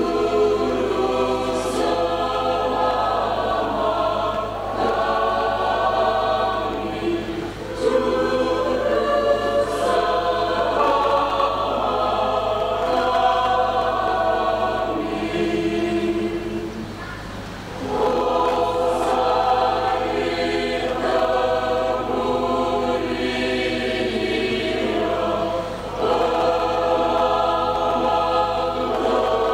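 Mixed church choir of men's and women's voices singing a hymn in parts, with a brief break between phrases about seventeen seconds in.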